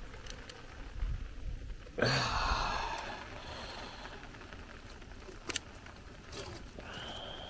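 Water scooped from a shallow spring pool with a plastic cup, with a splashy rush about two seconds in, then poured from the cup into a plastic bottle, its pitch rising slightly near the end as the bottle fills.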